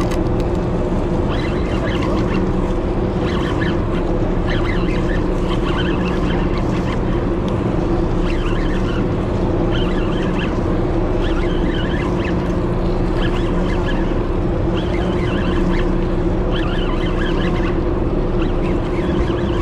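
Steady low drone of the party boat's engine, with short high-pitched sounds scattered over it.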